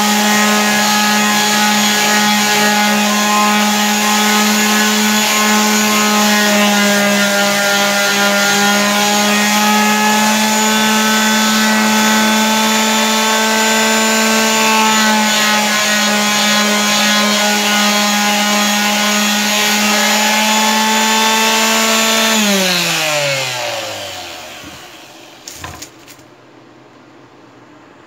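A 240 W electric orbital sander, its rectangular pad sanding a pine board, runs at a steady pitch. About 22 seconds in it is switched off, and its hum slides down in pitch and dies away as the motor winds down. Two light knocks follow near the end.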